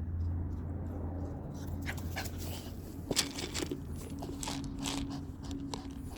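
A small Pomapoo dog panting, over a steady low hum. From about two seconds in there are many short, sharp clicks and ticks.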